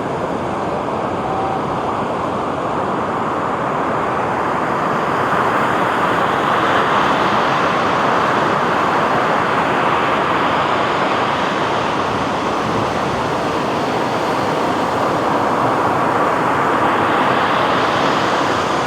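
Sea waves washing onto a beach: a continuous roar of surf that swells slowly and eases off again.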